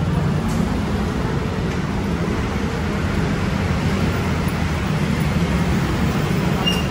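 City street ambience: a steady low rumble of road traffic, with no single event standing out.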